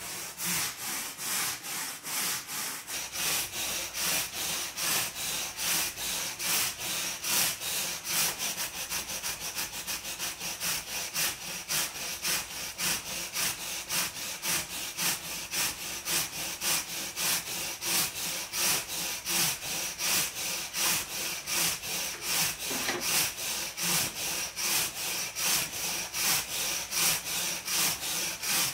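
Small hand wire brush scrubbing back and forth over a panel of layered paper on charcoal, an even rhythm of about three scratchy strokes a second.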